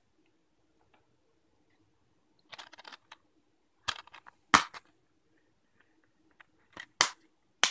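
Plastic Blu-ray cases handled and snapped open and shut: after a quiet first couple of seconds, a handful of sharp plastic clicks with a little rattling, the loudest about halfway through and another shortly before the end.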